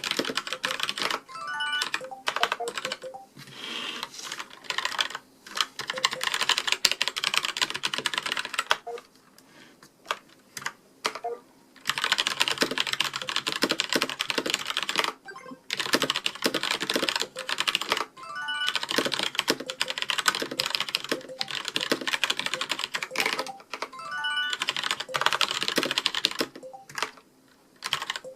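Fast typing on a Zalman K-500 mechanical keyboard with Kailh red linear switches: dense runs of keystroke clacks, broken by a few short pauses.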